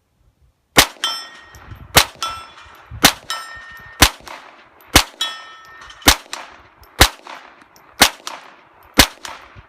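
Ruger MK III 22/45 pistol firing .22 LR at a steady pace, nine shots about a second apart. Several shots are answered a fraction of a second later by the ringing clang of a steel target plate being hit.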